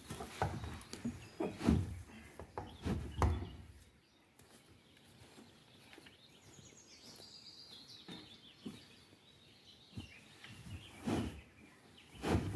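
Several dull knocks and thuds in the first few seconds, and two more near the end. In the quieter middle a songbird sings one descending phrase.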